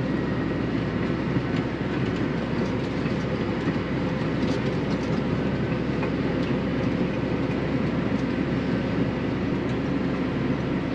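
Tractor running steadily: an even engine rumble with a rattling clatter.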